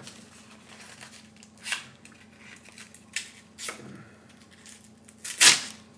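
A survival-kit knife blade slicing through a sheet of paper: a few short cutting strokes, the last and loudest near the end.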